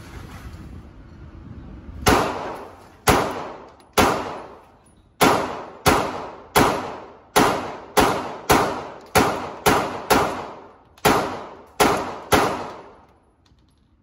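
Glock 19 9mm pistol firing fifteen shots at an uneven pace, roughly one to two a second, emptying its full 15-round magazine. Each shot echoes off the walls of an indoor range.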